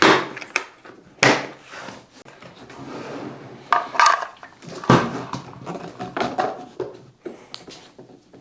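Knocks and clatter from the diesel heater unit and its parts being handled. There are three sharp knocks, one at the start, one about a second in and one near five seconds, with lighter clicks between.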